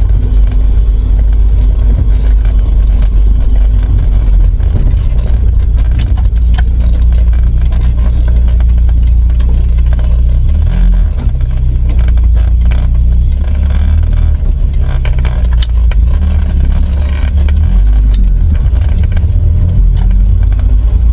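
A Volvo B230F four-cylinder engine running under way, heard from inside the car with a loud low road rumble. The engine note shifts in pitch about halfway through, with a brief dip in level.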